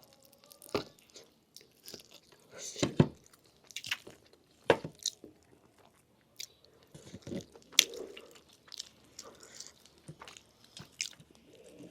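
Close-miked chewing and biting of pressure-cooked lamb meat off the bone, with irregular sharp clicks and crunches between quieter wet chewing.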